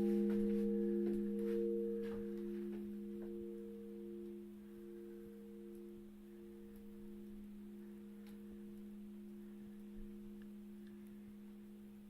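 A struck bell ringing on and dying away: a low hum with a few steady overtones. The higher overtones fade out within about the first second, one overtone pulses slowly, and the whole ring grows gradually fainter.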